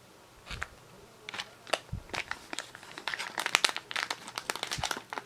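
Packaging crinkling and crackling as it is handled and opened: scattered sharp crackles at first, growing busier and denser through the second half.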